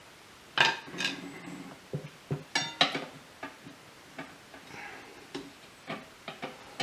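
Metal tire irons clicking and clanking against the wheel rim while prying a stiff tire bead over it, in irregular strokes with a few louder clanks about half a second in and near three seconds in.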